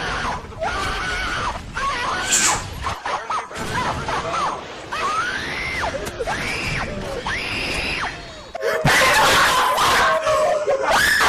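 A child screaming in a series of high, wailing shrieks that rise and fall in pitch, one after another. About nine seconds in, the screaming becomes much louder and harsher.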